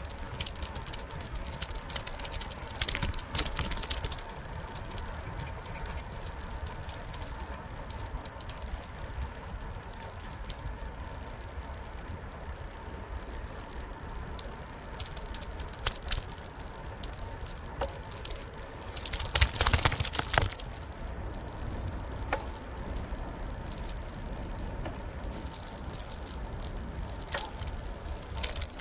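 Bicycle riding along a paved path, heard from a handlebar-mounted camera: a steady low rumble of wind and tyres, with scattered clicks and rattles from the bike. A short cluster of rattling comes a few seconds in, and a louder one about two-thirds of the way through.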